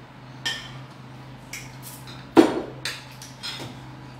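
Metal spoons clinking and scraping against ceramic plates and bowls during a meal, several short clinks with a heavier knock on the table about two and a half seconds in, over a steady low hum.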